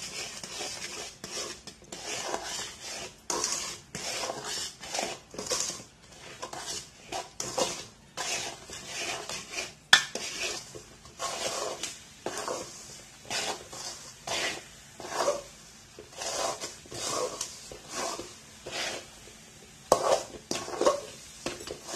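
Metal spoon stirring and scraping a thick flour-and-jaggery-syrup mixture around a metal pan, in repeated short strokes about one or two a second, with one sharp knock against the pan about ten seconds in.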